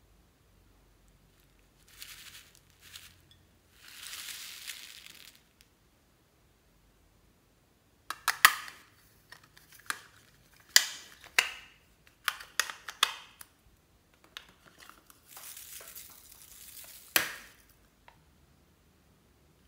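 Small foam beads poured into a glass bowl of slime, then a run of sharp plastic clicks and crinkling as plastic containers are handled and opened over the bowl.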